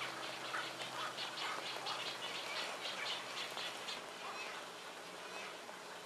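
Small forest waterfall splashing steadily onto rocks. Over it, an animal gives a rapid, evenly repeated call several times a second, which fades out about four seconds in.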